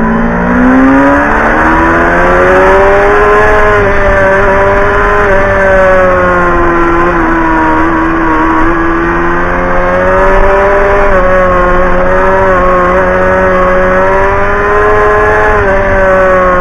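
Sport motorcycle engine under way, heard from a camera on the bike's own fairing: its pitch climbs steeply over the first few seconds as it accelerates, then eases and picks up again several times through the bends, over a low rumble of wind on the microphone.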